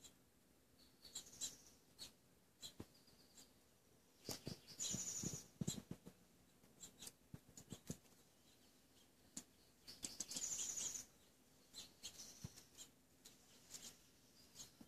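A small rodent moving and foraging among sunflower seeds and dry dirt: faint scattered clicks and scratching rustles, with two brief hissy high-pitched bursts about five and ten seconds in.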